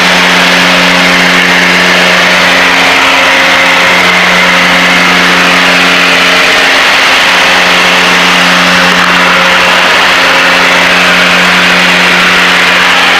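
Piper Seneca's twin piston engines and propellers droning steadily in cruise, heard inside the cabin: an even, loud hum with a steady low pitch.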